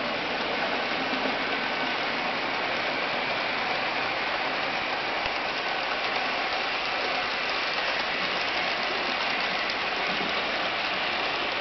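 N scale model freight train running on the track behind a 4-6-0 ten-wheeler locomotive: a steady whirring hiss from the small motor and the wheels rolling on the rails.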